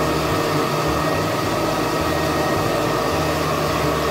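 Countertop blender running steadily at top speed, churning a thick avocado purée for guacamole.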